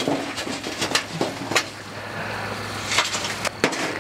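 Hot charcoal briquettes tumbling out of a chimney starter onto a sheet-metal cooking tray, then pushed into a line with metal tongs: a run of sharp clicks, clinks and scrapes of coals on metal.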